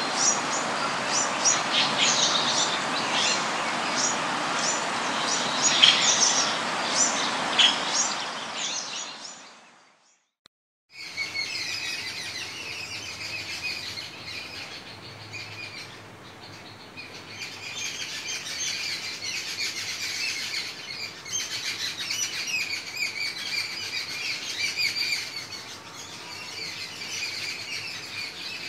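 Jungle babblers chattering: quick, repeated calls over a steady hiss of background noise. The sound fades out about ten seconds in, and after about a second of silence a quieter run of repeated chattering calls begins.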